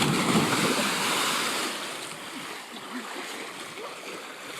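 A sudden loud splash as the jumper plunges into the river, followed by a rush of churning water that slowly eases off.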